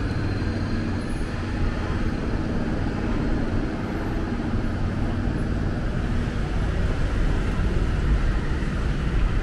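Road traffic running steadily, with the low hum of a nearby vehicle engine under it.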